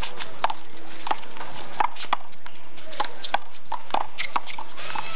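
One-wall handball rally: sharp, irregular slaps of the ball off players' hands, the wall and the concrete court, about one or two a second.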